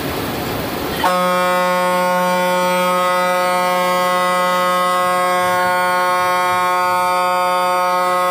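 Bus horn blown in one long, steady blast starting about a second in, drowning out the engine and road noise heard before it; a warning sounded on the approach to a blind bend on the hill road.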